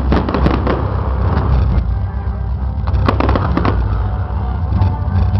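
Fireworks display: sharp bangs and crackles of bursting shells over a steady low rumble, with a cluster of cracks at the start and another about three seconds in.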